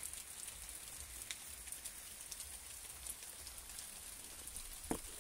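Steady rain falling, an even hiss with scattered drips ticking, and a single short knock near the end.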